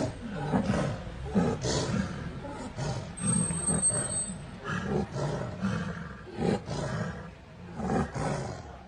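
Tigers growling and roaring in a series of deep, irregular bursts.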